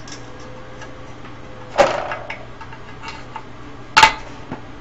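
Light clicks and two sharp clanks, about two seconds apart, of hard parts being handled while a deflection yoke is worked off the neck of a CRT television tube. The first clank rings briefly.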